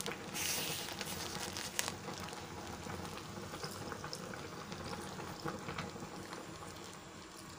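A pot of fish and vegetables in coconut milk simmering on a stovetop with a steady bubbling hiss, louder for the first couple of seconds, while fresh coconut milk is poured into it from a plastic bag.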